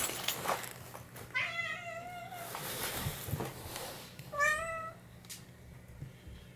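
Domestic cat meowing twice: a wavering meow about a second long, then a shorter, louder one a few seconds later.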